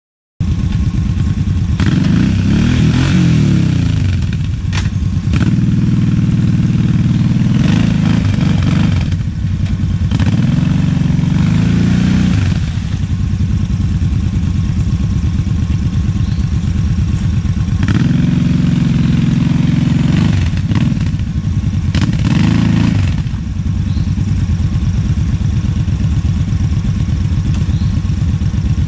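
ATV engine running while riding, revving up and easing off several times, with steadier, lower running between the swells and through the last few seconds.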